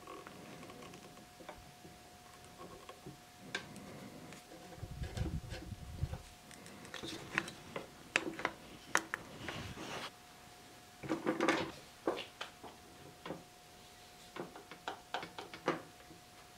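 Small one-handed bar clamps being handled and squeezed tight onto a glued, split oak table leg: scattered small clicks and knocks, with a brief low thud about five seconds in and a busier patch of clatter around eleven seconds, over a faint steady whine.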